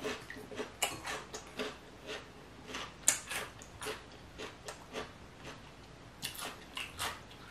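Close-up eating sounds from a seafood mukbang: a run of small, sharp clicks and wet smacks, irregular, a few each second.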